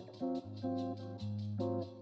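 Background music: a guitar-led instrumental with plucked notes over a bass line and a quick, even ticking beat.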